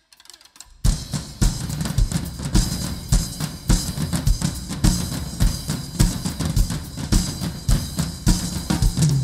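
Drums playing a steady beat, bass drum about twice a second with snare hits over it, starting abruptly about a second in.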